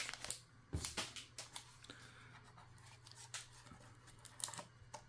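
Faint handling noise of a mini PC being turned over and handled: scattered light clicks and brief rustles of packaging, over a low steady hum.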